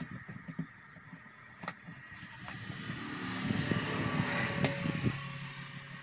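A road vehicle passing by, its sound swelling to a peak and then fading. Two sharp clicks come along with it, about a second and a half in and again near the peak.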